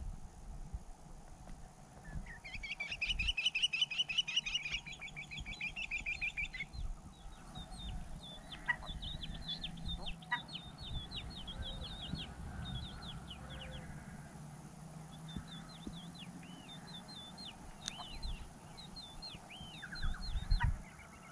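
Wild birds calling: first a fast, loud chattering run of high notes for a few seconds, then many short, repeated calls, each a brief high note that bends down. Low rumbling bumps sit underneath, loudest near the end.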